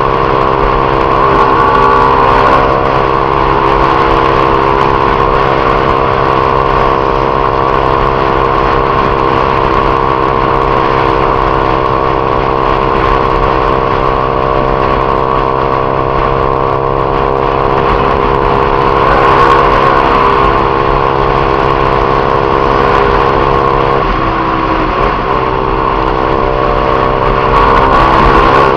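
Honda CG Titan 150 motorcycle's single-cylinder engine running at a steady speed. About three-quarters of the way through, its pitch briefly dips and then comes back up.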